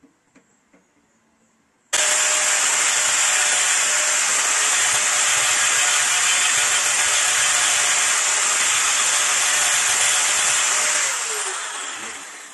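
Loud, steady rushing hiss of a motor-driven air blower running flat out. It starts abruptly about two seconds in and spins down with a falling pitch near the end.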